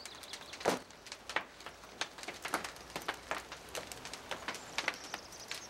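A run of irregular small clicks and knocks as stones are piled by hand onto a burning stack of larch wood.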